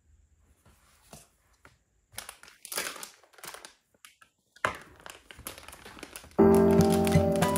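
Crinkling and rustling of something being handled, in irregular bursts after a quiet start. Background music with held notes cuts in abruptly near the end.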